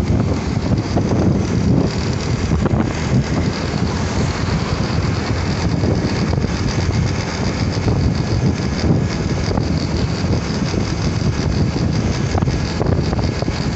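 Steady wind buffeting the microphone over the running of a motorcycle at cruising speed, with engine and road noise underneath.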